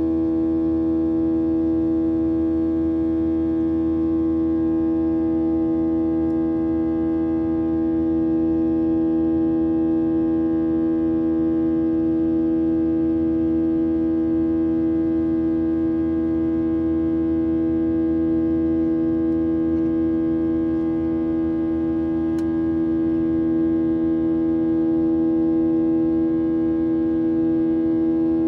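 Boeing 737-800's CFM56-7B turbofan engines heard inside the cabin: a steady drone of several held tones, the strongest a low hum, over a low rumble.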